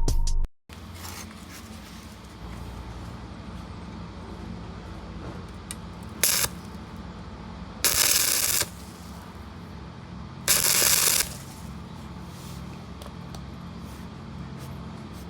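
Stick-welding arc struck three times in short bursts of crackling hiss, the longest under a second, over a steady low hum.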